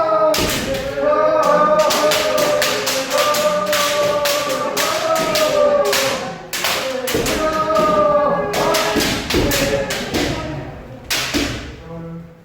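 Kendo practice: long held kiai shouts, overlaid with many sharp cracks of bamboo shinai strikes and foot stamps. The impacts come thickest in the middle and thin out near the end.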